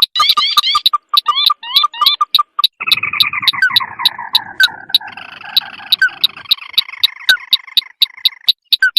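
Bird-lure recording of crake calls: a fast, even run of sharp ticking notes, some with short rising chirps, and from about three seconds in a long chattering trill that slides down in pitch.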